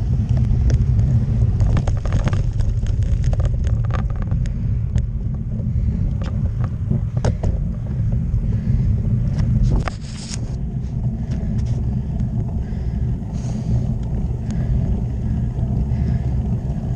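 Bicycle riding along a wet country road: low, steady wind buffeting on the bike-mounted camera's microphone with tyre noise on the wet tarmac. Scattered clicks and rattles come through for the first ten seconds, then stop, and the noise eases a little.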